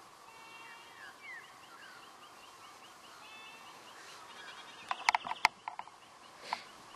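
Faint bird chirps and a fast, even ticking call over a quiet outdoor background. About five seconds in comes a quick run of loud, sharp clicks, and there is one more near the end.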